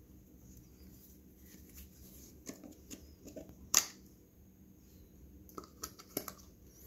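Handling noise from a turbocharger and its red plastic port caps: a scatter of short sharp clicks and taps, one louder click a little over halfway in and a quick run of them near the end.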